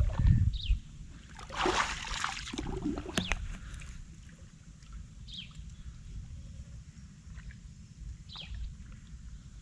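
Water sloshing and splashing in a burst about two seconds in, with a few clicks just after, over a steady low rumble. A bird gives short, falling calls twice later on.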